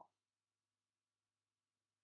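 Near silence: a faint steady low hum of the recording's background.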